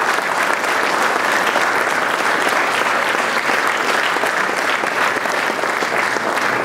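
A standing congregation applauding, a steady, dense clapping.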